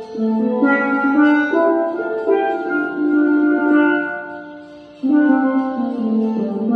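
A pair of steel pans playing a slow melody in held, rolled notes. A phrase dies away about four and a half seconds in, and the next begins at about five seconds.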